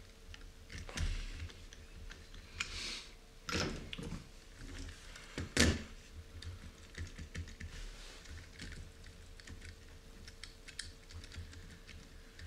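Small clicks and taps of an RC car's aluminium and carbon-fibre chassis parts being handled and fitted by hand, with a few louder knocks about one, three and a half and five and a half seconds in.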